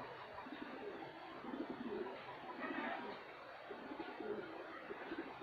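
Domestic racing pigeons cooing, a series of low, throaty coos repeating every second or so.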